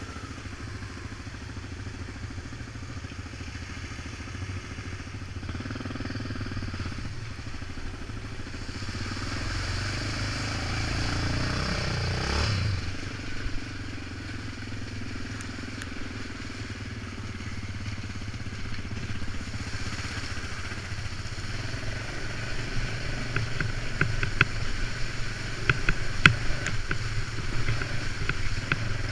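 Yamaha Raptor 700 quad's single-cylinder engine running along a wet, muddy trail, revving up to a peak about twelve seconds in and then easing off. Near the end the quad splashes through standing water, with spray and stones clattering against it.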